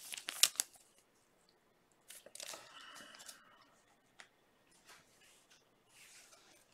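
Trading cards and their plastic sleeves being handled on a table: a quick run of sharp crinkling and clicks in the first second, then softer rustling of card and plastic about two to three and a half seconds in, with only a few faint ticks after that.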